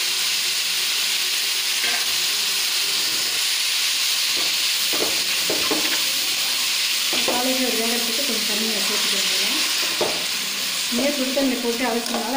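Cauliflower, onion and tomato stir-frying in oil, with a steady sizzle, as a perforated steel skimmer stirs them round the metal pan and now and then knocks or scrapes against it.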